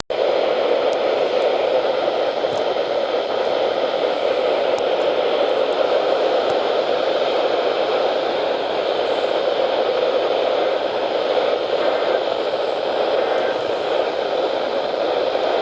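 Steady radio static hiss from a weather radio receiver with no signal coming through, starting abruptly.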